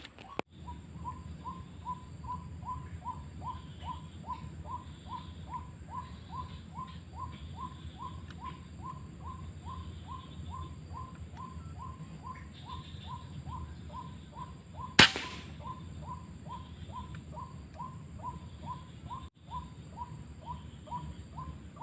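White-breasted waterhen call: one short note, repeated about twice a second without pause. About two-thirds through, a single sharp gunshot cuts in, much louder than the calling.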